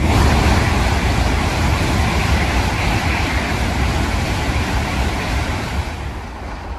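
An N700-series Tokaido Shinkansen train passing through a station at speed without stopping. It makes a loud rushing roar with a deep rumble that comes in suddenly and slowly fades toward the end as the train pulls away.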